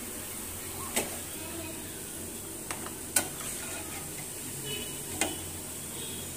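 Baby corn coated in cornflour frying in a pan of oil, with a steady sizzle. A metal spoon clinks sharply about four times as the fried pieces are lifted out into a paper-lined bowl.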